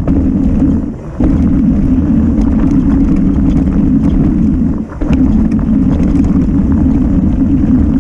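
Steady loud rushing of a mountain bike descending fast: wind on the microphone and tyres on the trail, with faint clicks and rattles from the bike over rough ground. The rush drops out briefly about a second in and again near five seconds.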